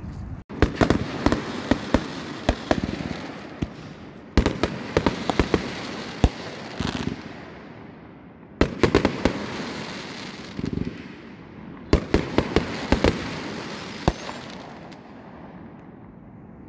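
Consumer fireworks going off in four volleys, about every four seconds: each a quick run of sharp bangs with crackle that fades out.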